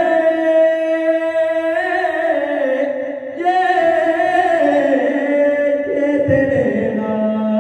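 A man's solo unaccompanied voice chanting an Urdu devotional salam into a microphone, holding long, wavering notes that glide between pitches, with a brief break about three seconds in.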